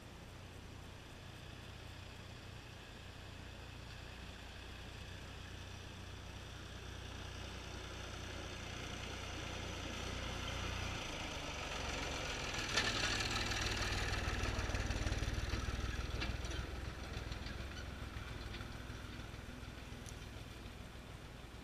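Tractor engine running as it drives closer and then away, growing louder to a peak a little past halfway and then fading. A single sharp knock sounds as it reaches its loudest.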